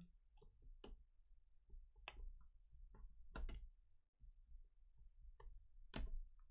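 Light scattered clicks and scrapes of a cardboard earbud box and its paper insert being handled. A few sharper clicks come about two seconds in, about three and a half seconds in, and near the end.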